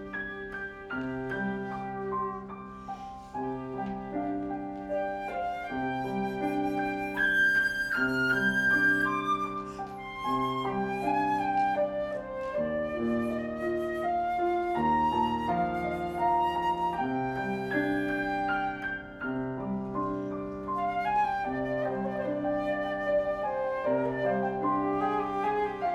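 Flute and piano playing a contemporary classical duet: the piano repeats a low figure every couple of seconds while the flute plays a melody above it.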